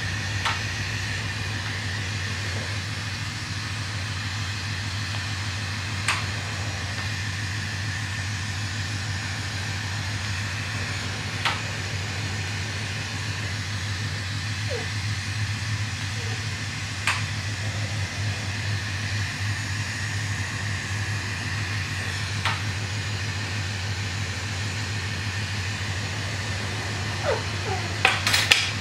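Glassblowing bench torch burning steadily over a low hum. A faint click comes about every five or six seconds, and a short burst of clicks and clinks sounds near the end.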